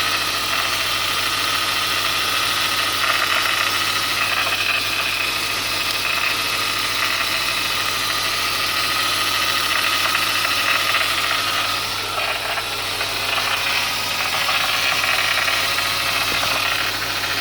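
BMW E39 528i straight-six engine idling steadily, with a steady high whine over the engine hum: the unusual engine noise the owner is trying to identify.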